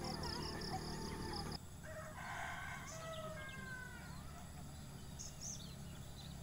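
A rooster crows once, about two seconds in: one drawn-out call that trails off with falling notes. Small birds chirp briefly later.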